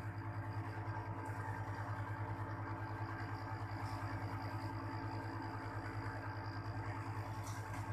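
Panasonic split air conditioner's outdoor unit running with a steady low hum from its compressor while it is being charged with refrigerant.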